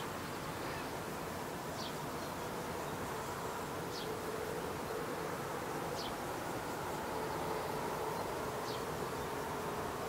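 Steady outdoor hiss with an insect's buzzing hum coming in about four seconds in. A short, high, falling note sounds about every two seconds, five times.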